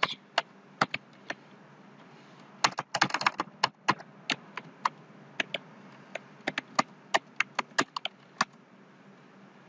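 Computer keyboard typing: irregular single keystrokes, a quick flurry of key presses about three seconds in, then a run of separate keystrokes that stops shortly before the end.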